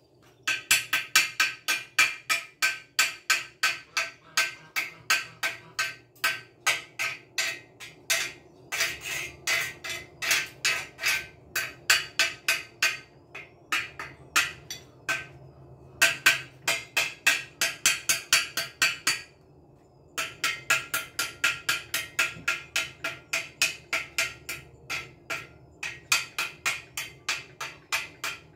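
A hammer striking metal in quick runs of about four blows a second, each blow ringing briefly, with short pauses between the runs.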